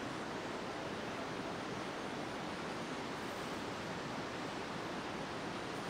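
A steady, even rushing noise of outdoor ambience, with no distinct events.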